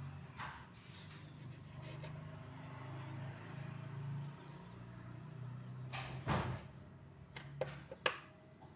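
Kitchen knife cutting crosses into whole tomatoes on a wooden chopping board: a few sharp knocks of the knife and fruit against the board, the loudest about six seconds in and two more near the end, over a steady low hum.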